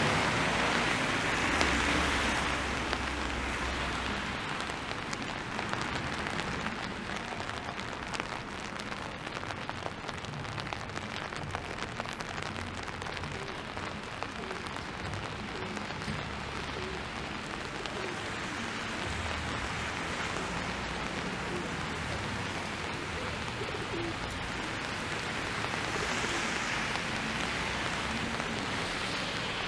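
Steady rain falling on wet pavement, with the hiss of car tyres on the wet road swelling louder near the start and again near the end.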